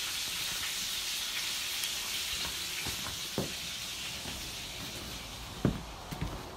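Food sizzling in a frying pan, a steady hiss that eases after about five seconds, with a few short knocks in the second half.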